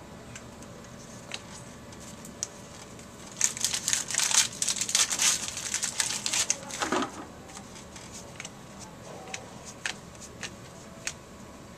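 Crinkling of a trading-card pack wrapper being torn open and handled, a dense crackling spell lasting a few seconds, with a few separate clicks and taps from cards being handled before and after.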